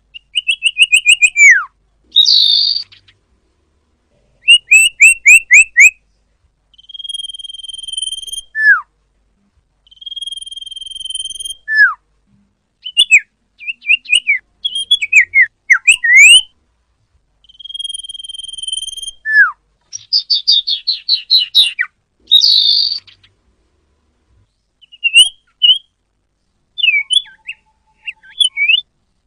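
Sirpu (sirdung) jungle flycatcher singing a varied whistled song. Long, steady clear whistles alternate with sharp falling slurs and quick runs of short notes and trills, phrase after phrase with short pauses between.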